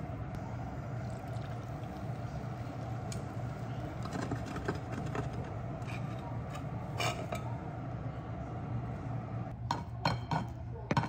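Kitchenware clinks and scrapes as a frying pan tips omelette-wrapped fried rice onto a plate, then a quick run of taps and scrapes near the end as a spatula shapes it on the plate. A steady low hum runs underneath.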